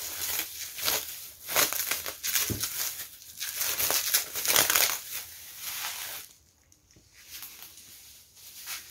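Bubble wrap crinkling and crackling as hands pull it off a book. The sound is dense for about six seconds, then drops to a few soft rustles.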